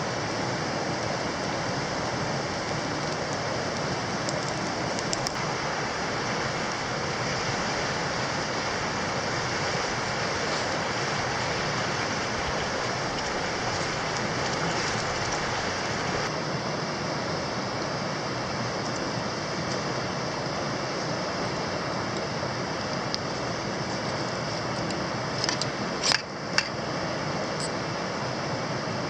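Steady rushing noise like flowing water, with a few sharp clicks near the end.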